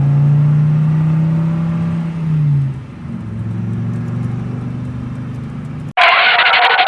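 Vehicle engine running steadily, its pitch dropping about two and a half seconds in. About six seconds in, a car horn starts honking loudly in quick pulses.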